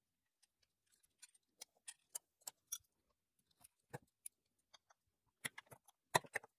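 Faint, scattered metallic clicks and taps of camshaft locking tools being unfastened and lifted off an engine's cylinder head, with a few louder clicks near the end.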